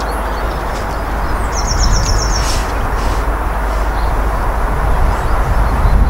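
Peppercorn A1 Pacific steam locomotive 60163 'Tornado', a three-cylinder 4-6-2, approaching at speed with its exhaust and running noise growing steadily louder. A brief run of quick high chirps sounds about one and a half seconds in.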